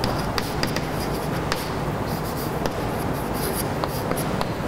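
Chalk writing on a blackboard: a string of irregular short taps and scratches as words are written.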